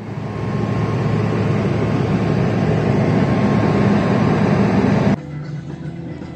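Airliner cabin noise: the steady rumble of the jet engines and airflow heard from a window seat. It cuts off abruptly about five seconds in.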